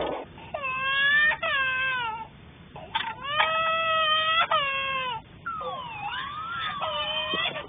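An infant crying in three long wailing bouts with short breaks between them; the last bout swings up and down in pitch.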